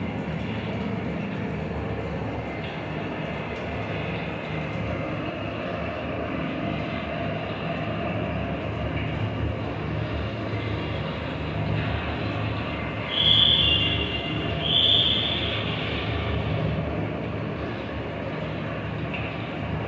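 Steady rumbling noise with two short high-pitched beeps a second and a half apart, about two-thirds of the way through.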